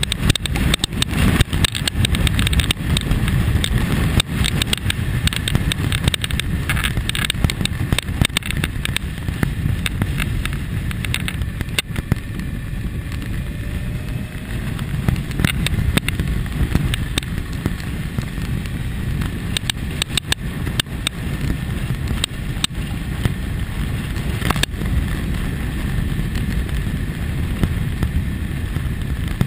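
Wind buffeting the onboard camera microphone in a low, gusty rumble, with the 2001 Kawasaki ZX-6R's inline-four engine running underneath while riding. It is a little louder in the first few seconds.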